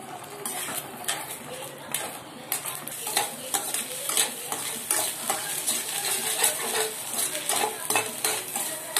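Eggs sizzling in a frying pan while a slotted spatula scrapes and taps against the pan again and again, chopping them into scrambled egg.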